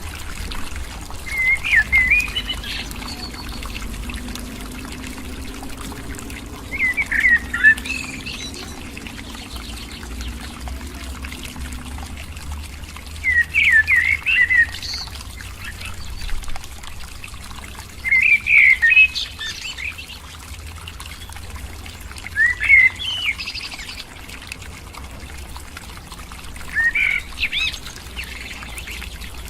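A bird calling in short bursts of quick chirping notes, six phrases spaced about four to five seconds apart, over a steady rushing background noise.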